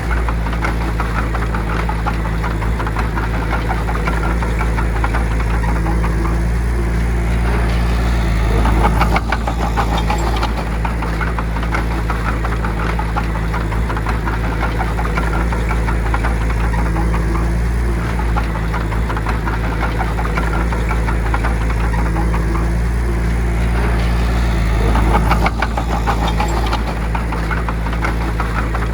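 Bulldozer's heavy diesel engine running steadily under load. It gets louder, with a dense clattering, about eight seconds in and again near the end.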